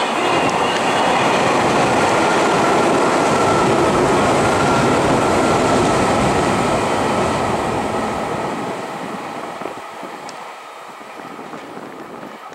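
Meitetsu 2000 series μSKY electric train passing through a station at speed without stopping: a loud rush of wheels on rail and moving air that fades away over the last few seconds as the train recedes. A steady high-pitched tone runs under the rush.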